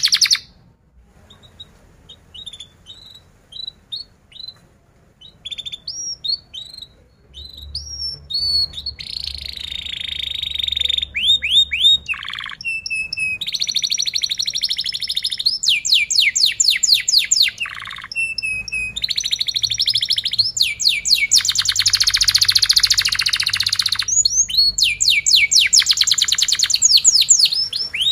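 Domestic canary singing: a few soft, scattered chirps at first, building into long phrases of fast trills, repeated down-sweeping notes and rapid buzzing rolls.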